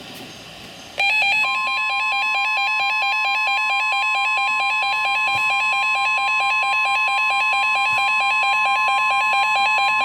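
NOAA Weather Radio warning alarm tone, a single steady tone near 1 kHz held for about nine seconds, marking the start of a new alert. It sounds together with a loud, rapidly alternating two-note electronic alarm warble. Both start about a second in.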